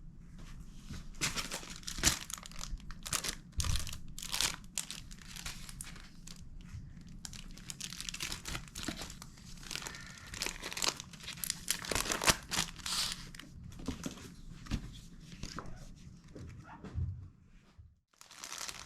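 Crinkly material being handled, giving irregular crinkling and rustling throughout.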